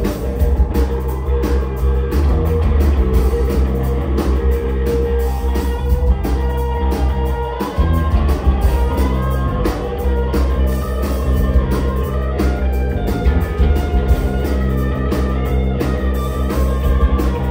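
A rock band playing live: several electric guitars over a drum kit keeping a steady beat, with a heavy low end.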